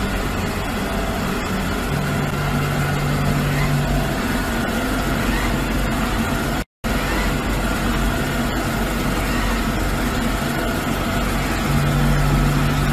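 Samsung robot vacuum running, a steady whirring with a low hum that comes in twice; the sound breaks off for an instant just past the middle.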